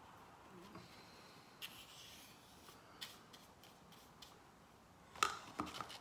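Quiet handling sounds of a paintbrush loaded with metal lacquer: a few faint clicks and a soft brushing rustle, then near the end a quick cluster of knocks as the brush goes into a plastic cup of lacquer.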